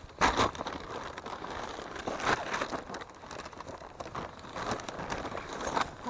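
Footsteps and rustling through dry brush and twigs, with the crinkle of a plastic bag carried against the camera; irregular crackling, with louder rustles just after the start, midway and near the end.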